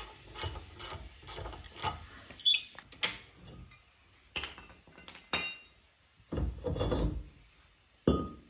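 Hand tools on the front brake caliper bracket bolts: a run of metal clicks and clinks, a few single sharp clicks, then a louder, denser stretch of rattling tool noise about six seconds in.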